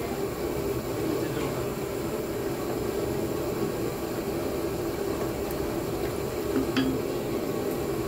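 Steady background hum in a kitchen, with a few faint clinks of cooking utensils, one about a second in and another near the end.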